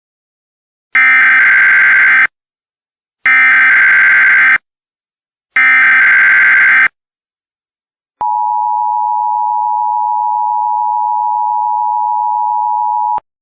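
Emergency Alert System alert opening: three bursts of SAME header data tones, each about a second and a half long and a second apart. These are followed by the steady two-tone EAS attention signal, which holds for about five seconds and then cuts off.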